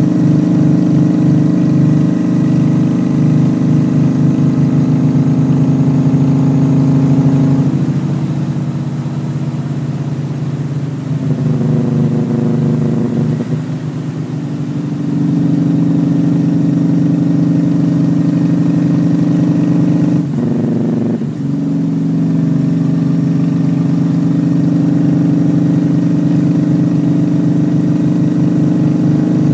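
Honda Shadow motorcycle's V-twin engine running under way. Its note shifts and softens for several seconds about a third of the way in, and it breaks off briefly about two-thirds through before picking up again.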